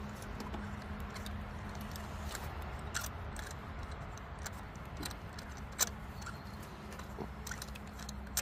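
Scattered metallic clicks and clinks of hand tools as a spark plug is worked loose with a socket wrench, over a steady low hum.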